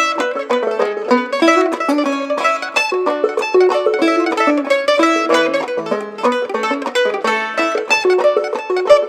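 Clawhammer banjo with a rawhide head and a mandolin playing an old-time fiddle tune together, a quick, unbroken run of plucked notes.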